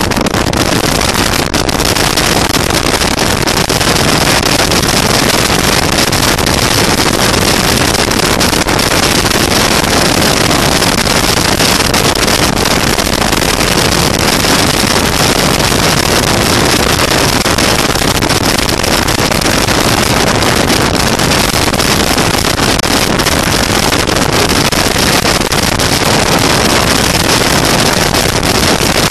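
Bass boat running at speed across open water: a loud, steady rush of wind on the microphone mixed with the motor and the hull on the water.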